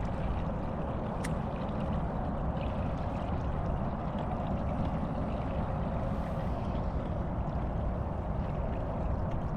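Steady running noise of a motorboat underway at low speed: the engine's drone mixed with water washing along the hull.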